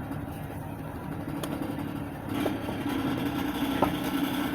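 2008 Toyota Sienna van running with a steady droning hum that grows louder a little over two seconds in. It is a noise the owner can't place, wondering whether it is the muffler, a fan or the alternator.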